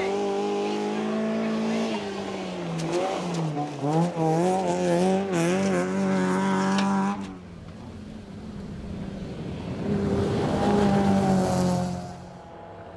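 Land Rover Freelander rally car driven hard on loose gravel. The engine revs rise and fall sharply as it accelerates and changes gear, over the hiss of gravel thrown by the tyres. About seven seconds in, the sound cuts suddenly to a quieter, more distant pass in which the engine note climbs and then fades away.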